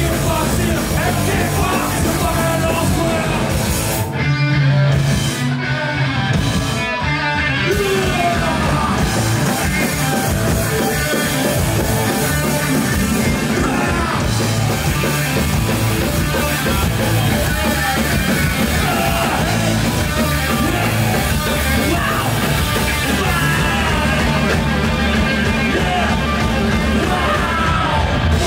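Live punk rock band playing loud, with a singer yelling into a microphone over guitars, bass and drums. About four seconds in, the cymbals drop out for three short stop-start breaks before the full band comes back in.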